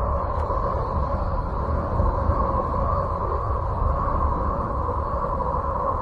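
Planetary 'space sound' presented as the sound of Uranus: electromagnetic wave recordings converted into audio. It is a steady, unchanging drone, a low rumble with a hum over it.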